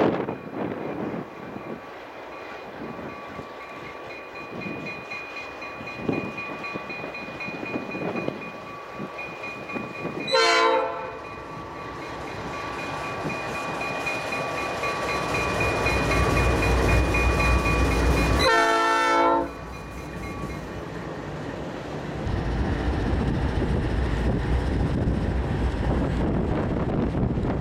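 Norfolk Southern diesel locomotive 9040 approaching and passing with a work train, its engine and wheels rumbling louder as it nears. Its air horn sounds twice: a short blast about ten seconds in and a longer one about eight seconds later.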